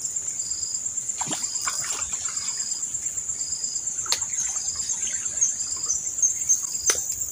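Insects chirping steadily in a high pulsing buzz, with shorter chirps repeating about once a second. Three brief splashes come over it as a hooked snakehead thrashes at the surface while being reeled in.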